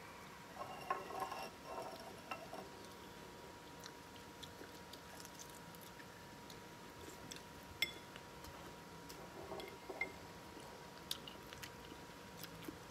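Faint eating sounds: a man biting and chewing steamed shrimp, with a few light clicks of chopsticks against dishes. A faint steady hum runs underneath.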